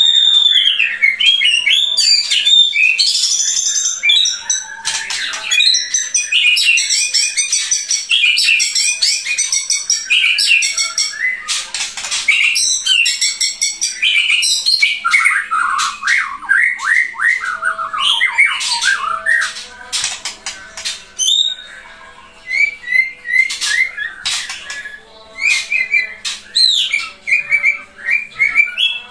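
White-rumped shama (murai batu, Pasaman strain) singing loudly in full, non-stop song: fast rolling trills, chattering runs and clear whistled notes in quick succession. About two-thirds of the way through the song drops lower and softer for a few seconds, then returns to high whistles and trills.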